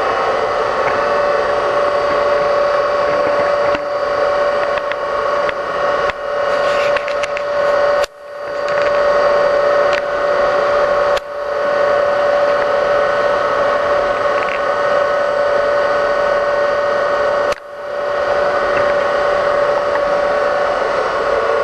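Brown & Sharpe 618 Micromaster surface grinder running with a steady whine. Three sharp clicks come several seconds apart, and the sound briefly dips after each.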